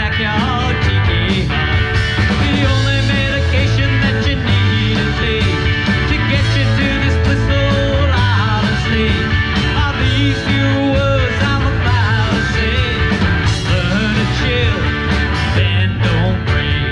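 Live rock band playing an instrumental passage on amplified electric and acoustic guitars with drums, a lead line bending up and down in pitch over the steady rhythm.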